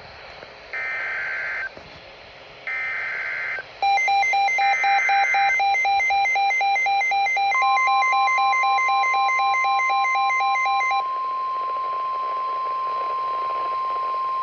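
Emergency Alert System header for the next alert: three short data bursts of warbling tones about two seconds apart. About four seconds in, a rapidly pulsing two-tone electronic alarm starts; it is joined about halfway through by a steady single-pitch warning tone that carries on after the pulsing stops.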